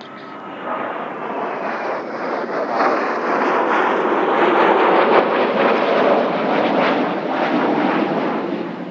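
Blue Impulse Kawasaki T-4 jet trainers making a low pass: turbofan jet noise swells, peaks about halfway through, then slowly fades.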